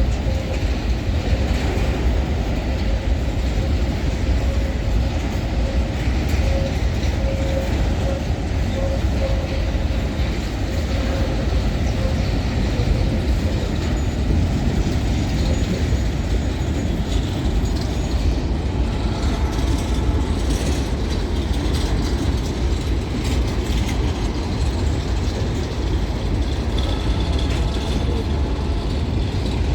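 Freight train of empty grain hopper wagons rolling through a curve: a loud, steady rumble and rattle of wheels on rail. A thin steady tone runs through the first half.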